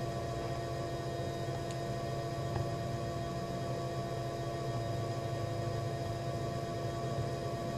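Steady electrical hum with room tone, holding a few fixed pitches, with a faint tick about two and a half seconds in.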